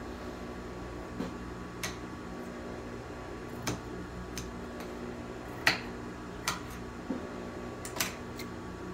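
Scissors snipping fabric: about half a dozen sharp clicks at uneven intervals, the loudest a little past the middle, over a steady low hum.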